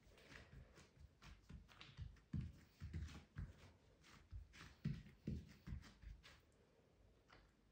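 Faint, irregular soft pats and thuds of hands pressing and stretching bread dough flat on a silicone baking mat, with light scuffs of skin on dough, busiest in the middle and dying away near the end.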